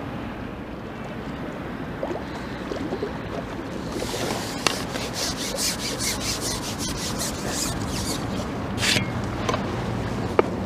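Carbon fishing pole being handled while a hooked skimmer bream is brought in. After a few seconds of steady wind noise, a series of short rasping rubs begins, with a couple of sharp clicks.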